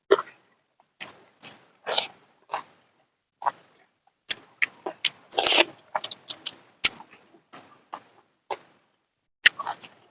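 Close-miked eating sounds: chewing and wet mouth smacks in irregular short clicks, with a longer crunchy burst about halfway through.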